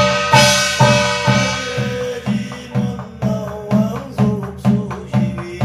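Korean shaman's scripture chant (gyeong reading) over a barrel drum (buk) beaten in a steady rhythm, about two strokes a second. A metallic ring sounds about a third of a second in and fades over the next couple of seconds.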